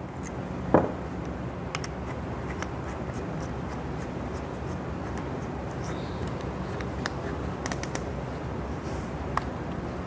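Hand handling of small steel parts: a Hilti SBT screw-in stud being set into its depth-gauge accessory, with a sharp click or squeak under a second in and a few faint clicks and scrapes later, over a steady low room hiss.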